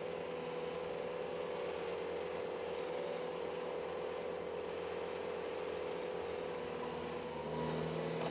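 Bobcat T250 compact track loader's diesel engine running steadily as it pushes sand. Near the end the engine note shifts and gets a little louder.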